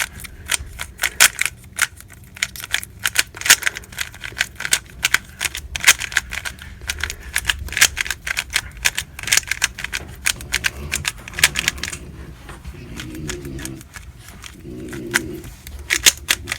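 Lubed MoYu RS3M 2020 3x3 speedcube being turned quickly during a solve: rapid plastic clicking of the layers, with a brief pause about three-quarters of the way through.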